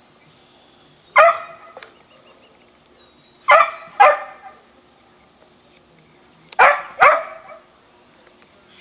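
A dog barking: one bark about a second in, then two pairs of barks, each pair half a second apart, around the middle and near the end.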